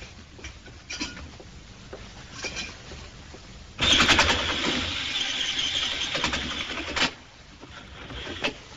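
A drill boring into a wooden floor: a loud, harsh, rapid grinding that starts about four seconds in, runs for about three seconds and stops abruptly. A few faint knocks come before it.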